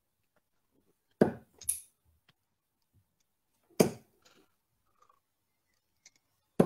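Three darts thudding into a dartboard one after another, each a sharp single impact, about two and a half seconds apart.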